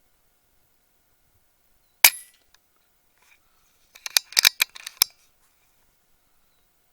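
A single shot from a .30-calibre RAW HM1000X PCP air rifle, a sharp crack with a short tail. About two seconds later comes a quick run of sharp clicks over roughly a second.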